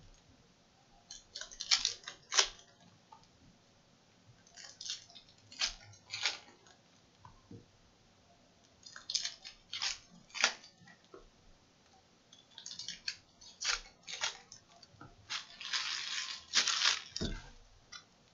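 Foil trading-card pack wrappers crinkling and tearing as packs are opened and the cards handled. The crackling rustles come in four clusters with pauses between them, the longest and densest near the end.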